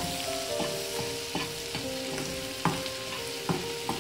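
Seasoned lobster heads sizzling in a frying pan while a metal spoon stirs them, knocking and scraping against the pan several times.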